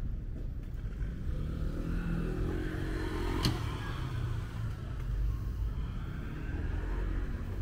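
A car passing on the street, its engine and tyre noise swelling and fading over a low street rumble, with one sharp click about halfway through.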